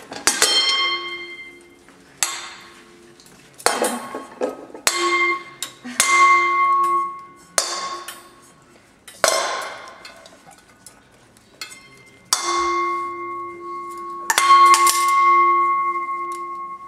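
A metal cooking pot and its lid being banged like a drum, about ten separate strikes spaced a second or more apart. Each strike leaves a ringing metal tone that fades slowly, the longest rings coming near the end.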